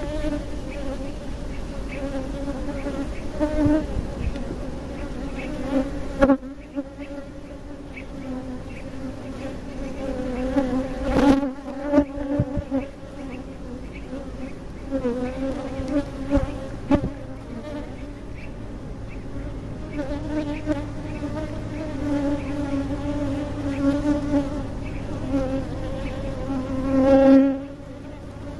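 Honeybees buzzing in a steady, wavering hum over an open hive of a populous colony. A few short knocks break in as wooden frames are pried loose with a hive tool and lifted out.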